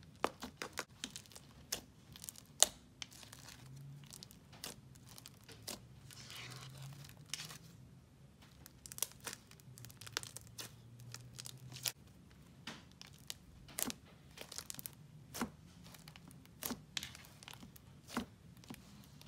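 Hands stretching, folding and pressing a layered slime topped with foam beads, giving irregular crackles and sharp little pops, the loudest pop about two and a half seconds in.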